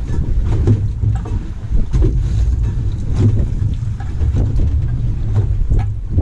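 Wind rumbling on the microphone aboard a small fishing boat on open water, with irregular knocks of water against the hull.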